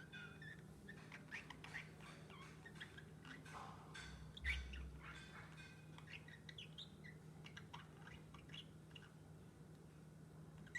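A pet lovebird chirping softly: many short, quick chirps and tweets, with a louder chirp and a low thump about four and a half seconds in.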